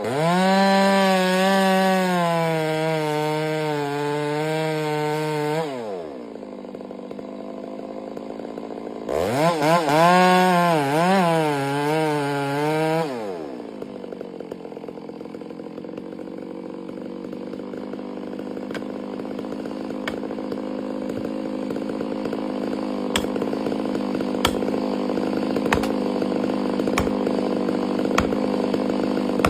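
Two-stroke chainsaw held at high revs for several seconds, its pitch wavering under load as if cutting. The throttle drops off, it revs up again for a few seconds and falls back, then it runs on more quietly and steadily with scattered sharp ticks.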